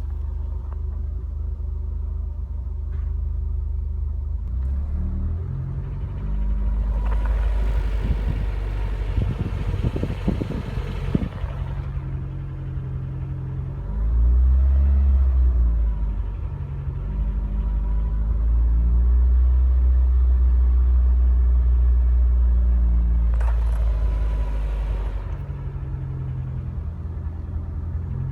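Renault Mégane R26's turbocharged four-cylinder petrol engine held at low revs, its speed stepped up and down several times. It carries the tapping or ticking knock that occurs only between about 1500 and 2000 rpm, with revs held and on overrun.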